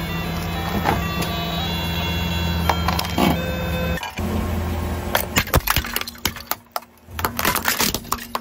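A car engine idles with a plastic toy guitar's electronic tones sounding over it. After about four seconds comes a run of sharp cracks as a car tyre rolls over brittle plastic and crushes it.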